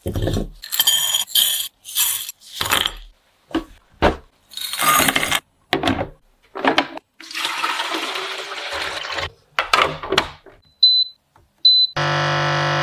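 Kitchen prep sounds: clinks and knocks of yam pieces and dishes, and rushes of ingredients and water poured into the jug of a heated high-speed blender. Two short high beeps from the blender's controls follow, then near the end its motor starts with a steady hum.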